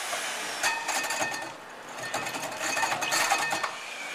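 Power drill driving a hole saw into sheet metal, the saw teeth grinding and chattering against the metal with a whining tone. It comes in two bursts about a second long, one near the start and one about three seconds in, with a quieter stretch between as the pressure eases.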